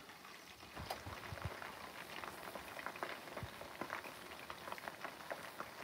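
Chicken wings deep-frying in hot oil in a pan: a steady sizzle with many small crackles and pops.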